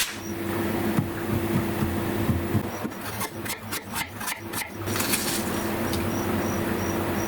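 Steel ruler edge worked in quick short scraping strokes, about four a second, for around two seconds midway, over a steady low hum.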